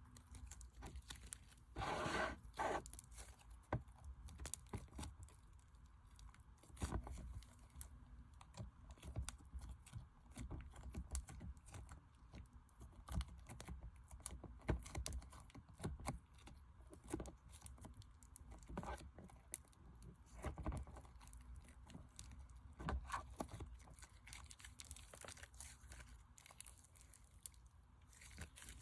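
Slime being squished and stretched by hand, making irregular crackly clicks and pops with a few louder crinkly bursts.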